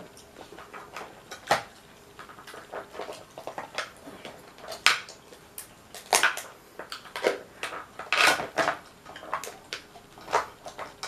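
Hard-shelled boiled Dungeness crab being cracked and pulled apart by hand over a plate: an irregular string of sharp cracks and clicks, loudest about five and eight seconds in.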